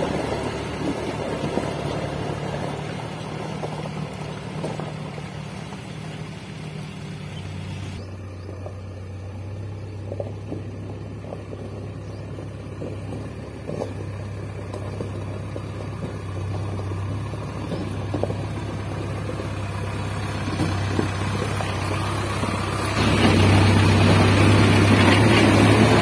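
Diesel engines running, in three stretches. For the first 8 s or so, a tractor engine hauls a loaded trolley through a stream, with water splashing. Then a JCB 3DX backhoe loader's engine runs steadily. For the last few seconds that engine is much louder and close up, as heard from the machine itself.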